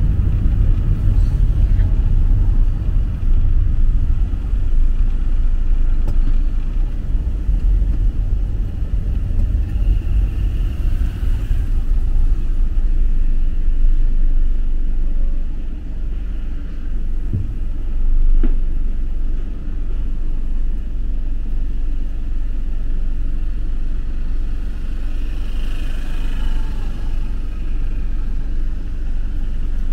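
City street ambience: a steady low rumble of road traffic, easing slightly about halfway through.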